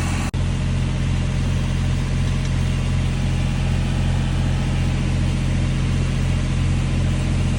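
Steady stick (SMAW) welding: the electrode arc gives a continuous crackling hiss over a deep, even mains hum from the welding machine. The sound cuts out for an instant just after the start.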